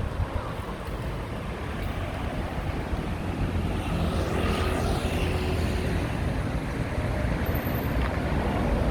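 Wind buffeting the microphone over street traffic, with one vehicle passing by about four to five seconds in.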